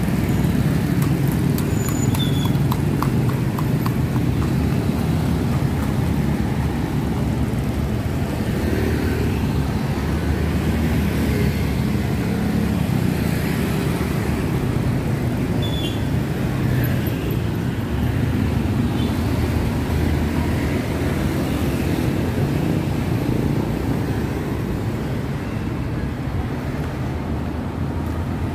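Steady road traffic noise, mostly a low rumble of passing vehicles.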